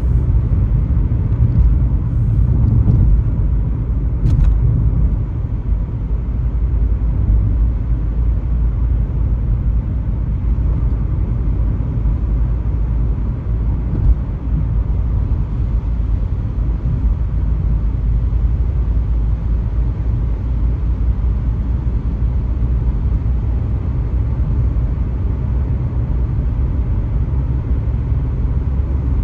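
Car driving on a highway: a steady low rumble of road and engine noise.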